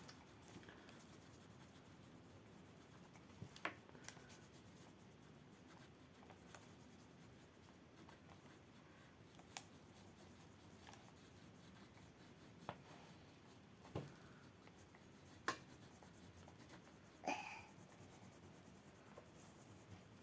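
Faint scratching of pastel on paper while a drawing is coloured, broken by a handful of short, light clicks and taps spread through.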